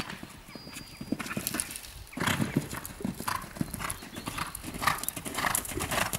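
A horse's hooves cantering on an arena's sand footing, a steady run of soft thuds in the three-beat canter rhythm, getting louder about two seconds in as the horse comes close.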